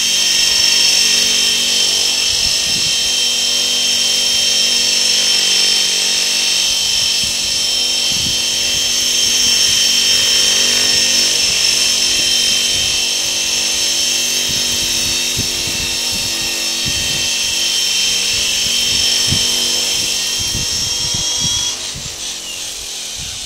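Tandem-rotor RC helicopter built from two Align T-Rex 550 electric helicopters hovering: a steady high whine from the motors and rotor heads, with scattered low thumps. About 22 s in, the whine drops sharply and winds down as it lands and powers down.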